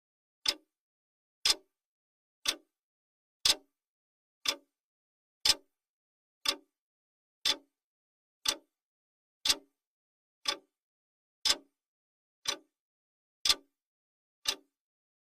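Clock ticking sound effect of a countdown timer: one sharp tick a second, alternating slightly louder and softer like a tick-tock.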